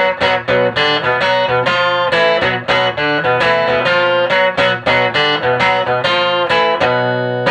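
Guitar chords strummed in a steady rhythm through a 1965 WEM Control ER15 valve amplifier head with push-pull EL84 output valves, giving a rhythm-guitar tone on the amp's normal channel. The playing stops at the very end.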